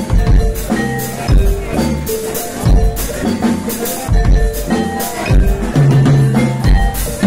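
Live band playing: two drum kits with frequent cymbal and hi-hat strokes over a deep bass line, with held mid-range instrument notes.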